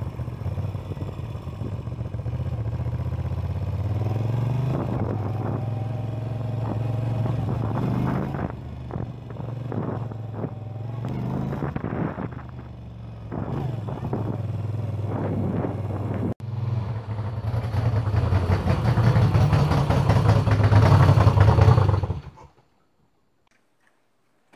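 Moto Guzzi V7 III's air-cooled transverse V-twin engine running while the bike is ridden, its revs rising and falling. The engine sound cuts off abruptly near the end.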